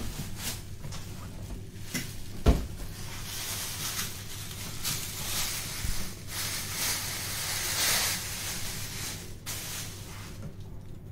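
Plastic bag rustling and crinkling in waves as it is pulled off a boxed speaker, with one sharp thump about two and a half seconds in, over a steady low hum.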